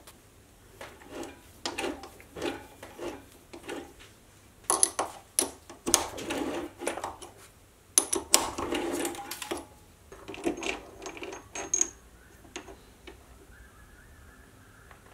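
Sieg C3 mini lathe cutting a thread on a steel stud: the cutting tool scraping through the metal with chips clicking and rattling, in several bursts that are loudest in the middle and stop after about twelve seconds.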